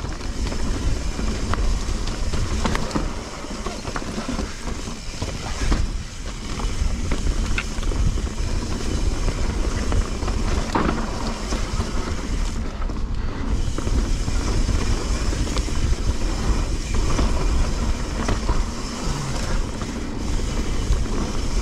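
Mountain bike riding down a dirt trail: a steady rumble of tyres over the ground, with frequent clicks and rattles from the bike, and wind buffeting the camera microphone.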